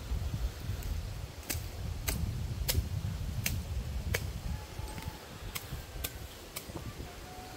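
A string of sharp clicks, roughly one every half second, starting about a second and a half in, over a steady low rumble of wind on the microphone.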